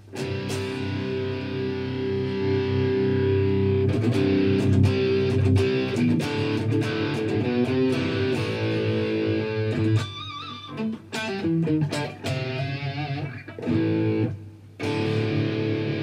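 Electric guitar played through a Visa Distortion pedal to test its sound with a newly fitted 3PDT footswitch. Distorted chords are let ring, then changing notes and a wavering bent note, with short breaks a little past halfway and near the end.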